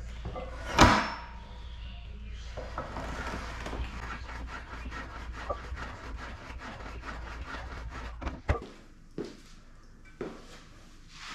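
Plate-loaded compact leg press in use. There is a loud clank about a second in, then rubbing and light clicking from the sled and plates moving on the rails. A few separate knocks come near the end.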